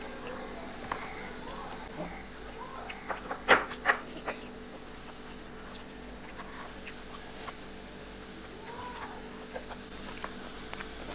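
Chickens clucking in the background over a steady high insect drone, with two sharp knocks about three and a half seconds in.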